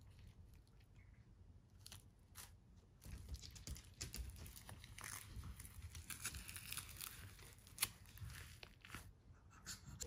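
Faint rustling, crackling and scattered clicks as a rubber pet grooming glove is handled and waved about, starting about three seconds in after a few clicks.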